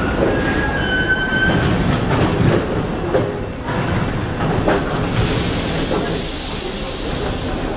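Paris Métro train at the platform, with rumble and platform bustle. A brief high pitched tone sounds about a second in, and a steady high hiss begins about five seconds in.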